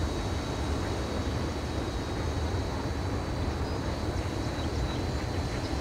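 Steady low rumble of a distant diesel freight train as it moves away down the track, with a faint, steady high whine above it.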